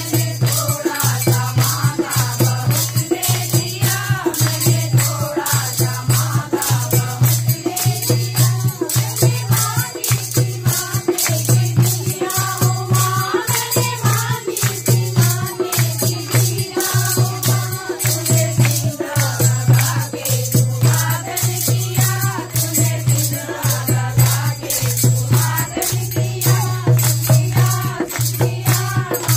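Devotional Kumaoni bhajan: voices singing a melody over a steady beat, with rapid jingling percussion.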